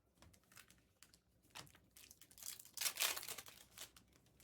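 Foil wrapper of a trading-card pack crinkling and tearing as it is opened, in a run of short rustles that are loudest a little past the middle.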